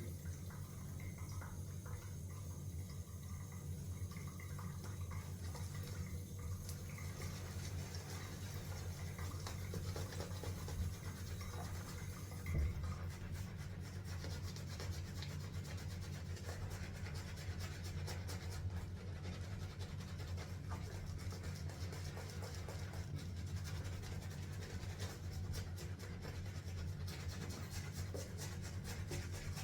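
Badger-hair shaving brush being worked through mint soap lather, a soft continuous rubbing, over a steady low hum.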